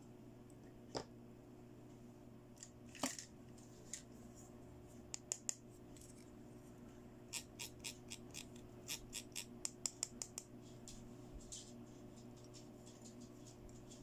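Small hard-plastic toy accessories clicking as they are handled: a few single clicks, then a run of quick clicks from about halfway, as a fingernail flicks the teeth of a plastic toy comb. A faint steady hum lies underneath.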